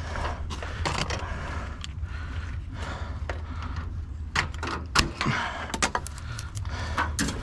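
Scrap metal being handled: a run of sharp clinks, knocks and rattles that come thicker and louder from about four seconds in, over a steady low hum.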